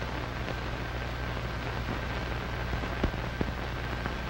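Surface noise of an old 1940s film soundtrack: steady hiss and low hum with scattered crackle, and a couple of sharp clicks about three seconds in.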